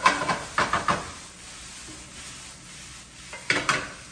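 Wooden spatula scraping and knocking against a skillet as fried rice is stirred, over a light sizzle. There is a cluster of scrapes at the start and another shortly before the end.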